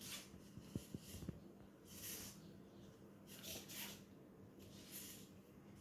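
Near silence: faint room tone with a low steady hum, a few soft hissy rustles and a couple of tiny clicks.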